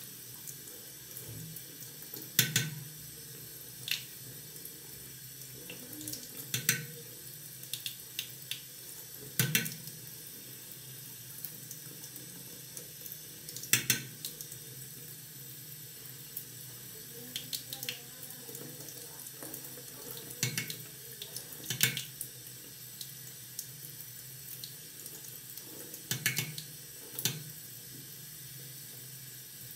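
A tap running steadily into a bathroom sink, with sharp clicks or knocks every few seconds.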